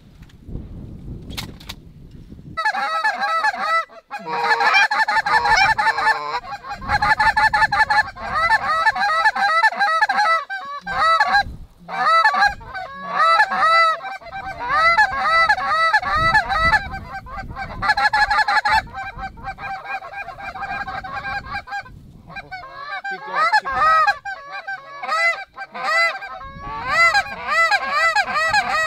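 Goose honking: many loud, rapid, overlapping honks and clucks, starting about two and a half seconds in and running on with a few brief breaks.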